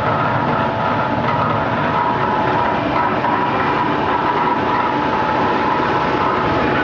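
Plastic-scrap washing and drying machine for low-density polyethylene, running steadily. A constant mechanical rumble and rattle with a steady whine.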